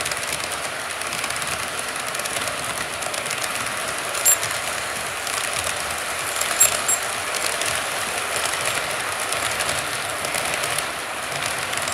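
Model freight train's cars rolling past on the layout track: a steady rattling rush of small metal wheels on rail, full of rapid clicking, with a few sharp high ticks about four and seven seconds in.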